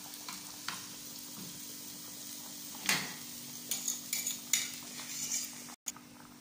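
Chopped garlic sizzling as it fries in ghee in a pan, with a metal spoon stirring it and clicking and scraping against the pan several times in the middle. The sound drops out for a moment near the end.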